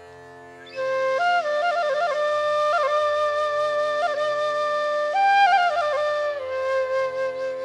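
Background music: a flute melody with ornamented, sliding notes over a steady held drone. The flute comes in about a second in.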